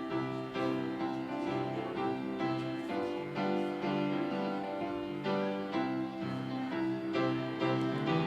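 Church keyboard music: chords played in a steady, moderate rhythm as closing music after the benediction.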